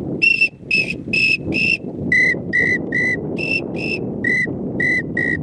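Acrylic teal/pintail duck whistle blown in a string of short whistled pips, rolled with the throat to imitate a drake pintail's call. There are roughly two or three notes a second, switching between a higher and a lower pitch, over steady wind noise on the microphone.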